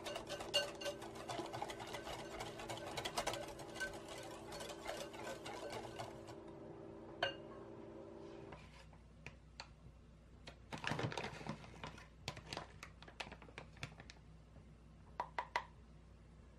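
Metal wire whisk beating a runny egg-yolk batter in a glass bowl: fast, dense clicking of the wires against the glass that thins to a few strokes about six seconds in and stops about halfway. After that, only a few faint scattered taps.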